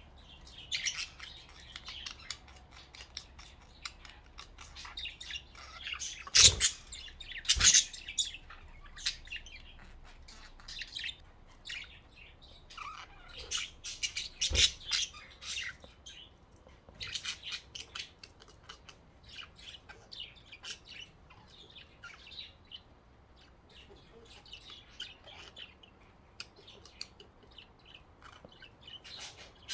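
Budgerigars chirping and chattering in quick, short high notes throughout, with three sharp knocks, the loudest sounds, about six and a half, seven and a half and fourteen and a half seconds in.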